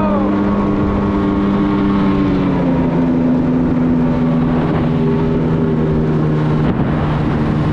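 Jet ski engine running at speed, with water and wind rushing past. Its pitch steps down slightly about two and a half seconds in and again near the end.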